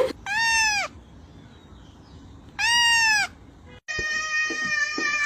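A cat meowing: two short meows rising and falling in pitch, then a longer, steadier meow that starts near the end.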